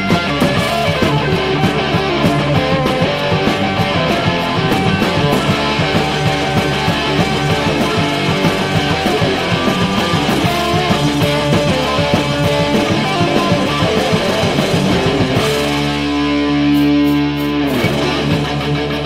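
Rock band music driven by electric guitar. Near the end a long sustained tone rings for about two seconds while the beat thins out, then the full band comes back.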